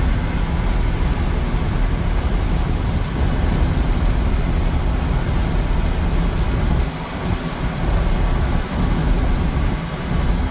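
Pickup truck cruising at highway speed, heard from inside the cab: a steady low rumble of road and wind noise.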